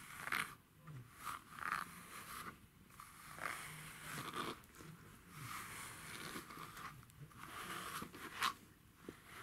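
A de-shedding grooming brush raking through a long-haired cat's thick coat, a scratchy rustle with each of a string of irregular strokes.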